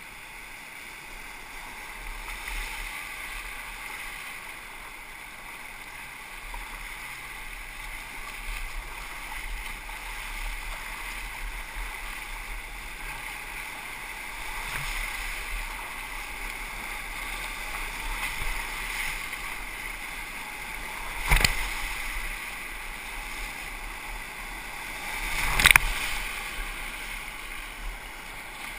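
Whitewater rapids rushing steadily around a kayak, heard from the boat as it runs the rapid. Near the end, two loud splashes of water hit, a few seconds apart.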